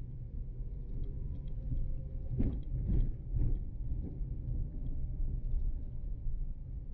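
A car driving on city streets: a steady low rumble of engine and road noise, with a few brief knocks about two and a half to three and a half seconds in.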